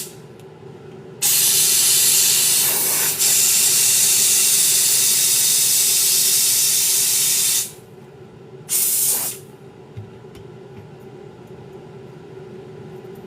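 Pressurised spray hissing in long bursts, one about six seconds long starting about a second in with a brief break partway, then a short burst near the nine-second mark, used in working on the sneakers.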